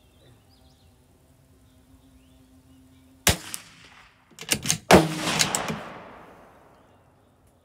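Gunshots: one sharp shot about three seconds in, then a quick cluster of several shots about a second later, the loudest with a long echoing tail.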